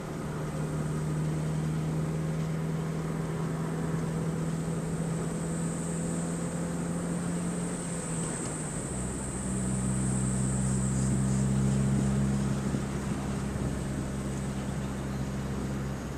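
A car's engine and road noise heard from inside the cabin while driving: a steady hum over a hiss of tyre and wind noise, with the engine note changing about halfway through.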